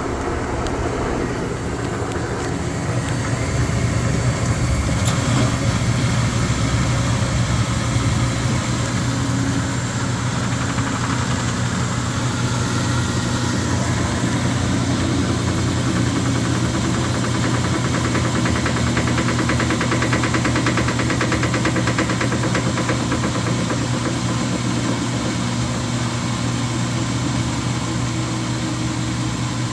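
Speed Queen TR-series top-load washer running with a steady hum and a fast, continuous knocking rattle, caused by play in the drive pulley on its shaft after the pulley nut worked loose.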